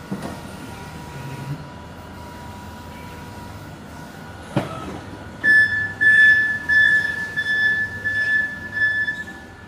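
Flexi narrow-aisle forklift moving in the aisle with a low steady hum. A single knock comes about halfway through, then a loud, high pulsing tone, the truck's warning alarm, sounds until the end.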